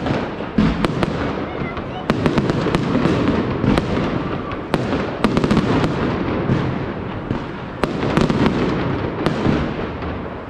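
Fireworks display: a dense, irregular run of sharp bangs from bursting shells, with crackling between them and a continuous rumble underneath.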